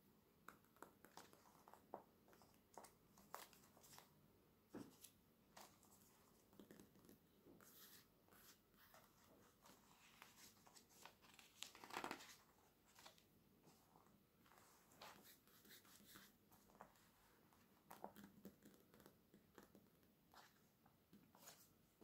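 Quiet fingernail taps and light scratching on glossy catalogue paper, scattered throughout. About halfway through a page is turned with a longer paper rustle, the loudest sound.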